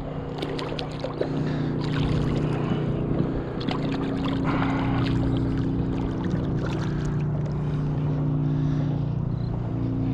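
Boat motor running steadily nearby, a constant engine hum with small short clicks and splashes over it.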